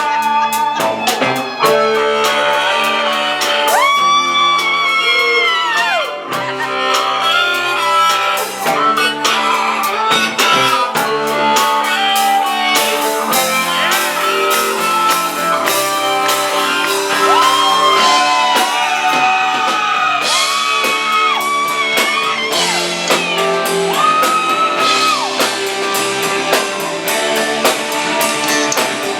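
Live rock band playing loud in a large room: electric guitar and drums, with long held notes that bend in pitch.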